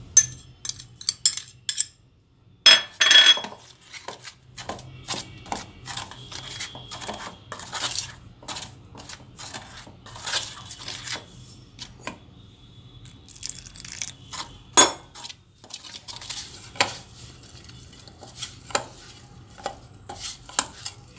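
A hand mixing flour and water into dough in a stainless steel bowl, fingers and rings knocking and scraping against the metal in irregular clinks. Near the start a glass bowl tipped over the rim clinks against it as the water goes in, with a louder noisy stretch about three seconds in, and there are sharper knocks about 15 and 17 seconds in.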